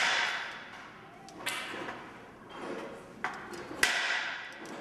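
Small metal hand tool tapping on a thin brass qeej reed as the reed is worked for its bamboo pipe: four sharp taps, the first and last loudest, each ringing and fading away.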